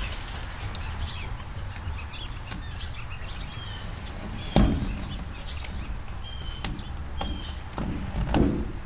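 Steady outdoor background rumble with small birds chirping faintly now and then, and hands working foam pipe insulation at the base of an air-conditioning line: a sharp knock about halfway through and a rustling bump near the end.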